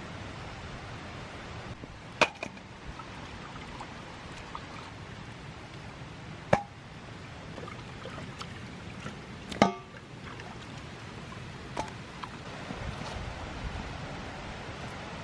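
A few sharp clanks and knocks of a steel cooking pot and bowl being handled, two of them ringing briefly like metal, over a steady background hiss.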